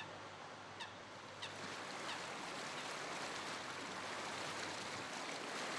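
Outdoor riverside ambience: a steady wash of water and background noise with a faint low hum, and a few short bird chirps in the first second and a half.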